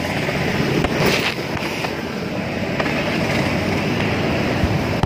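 Steady rush of road and wind noise from riding a motorbike along a wet street, with no distinct engine note standing out.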